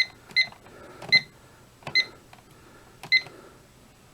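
Fire alarm control panel keypad beeping at each key press while being programmed: five short, high beeps at uneven intervals, with a few faint key clicks between them.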